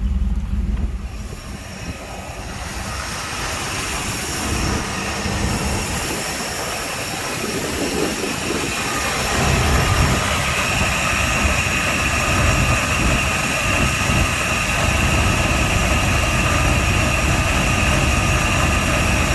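Engine idling low, at about 700 RPM with the distributor fully advanced, which the owner finds it doesn't like; he suspects a vacuum leak. The level dips about a second in and builds back, and a high steady whine comes in about ten seconds in.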